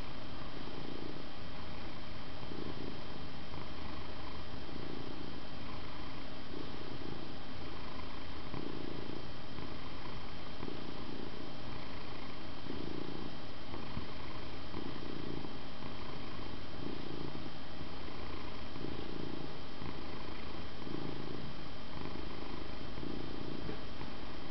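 An old, heavy (12 kg) domestic cat purring steadily, the purr swelling and fading with each breath about every second and a half.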